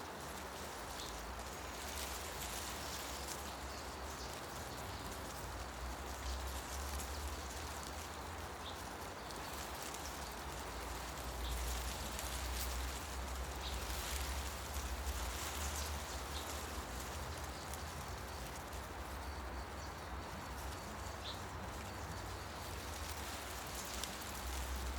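Forest ambience: wind rustling the leaves in steady waves, with a low rumble underneath and a few faint, brief bird chirps, including a short run of quick repeated notes.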